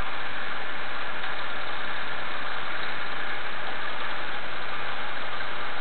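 VexUs plasma ignition test rig running, firing its spark continuously across the gap in an unpressurized combustion test chamber: a steady, even noise that does not change.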